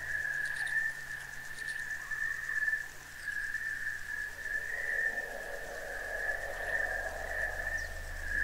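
A steady high-pitched drone, wavering a little. A softer, lower tone joins it about three seconds in and fades out near the end.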